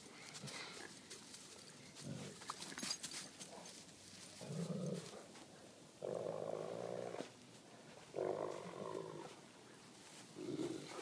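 Dogs play-growling in a tug of war over a toy: about four rough growls, each a second or so long, with a few light clicks and scuffles between them.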